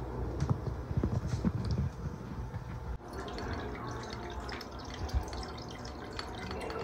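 A pot of chicken at a rolling boil, bubbling irregularly. About three seconds in this gives way to sangria running from a boxed-wine spigot into a glass, a steady trickle as the glass fills.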